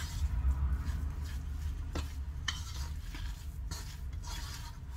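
A spoon stirring and mashing a thick cottage cheese dough in a bowl: soft scraping, with a couple of sharper clinks of the spoon against the bowl about two seconds in, over a steady low hum.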